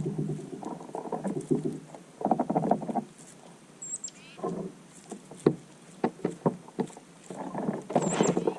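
Two short, very high bird chirps, one about four seconds in and one near the end, over repeated bursts of rustling, pattering and clicks.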